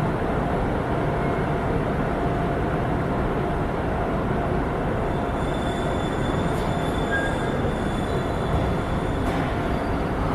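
A train running past on the rails: a steady, loud rush and rumble of wheels and running gear, with faint whining tones over it.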